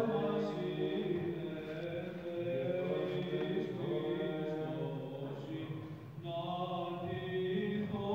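Orthodox monks singing Byzantine chant: a moving melody over a steady low held note, with a brief break about six seconds in.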